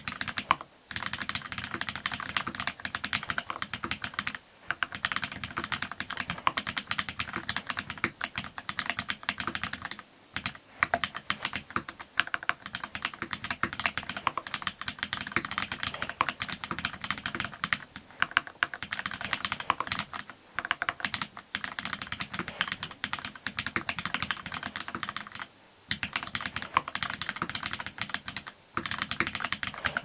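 Continuous fast typing on an AL.BOK custom mechanical keyboard: top-mounted FR4 plate, lubed and filmed retooled Cherry MX Black linear switches, GMK keycaps. A dense stream of keystroke clacks with a few brief pauses, stopping at the very end.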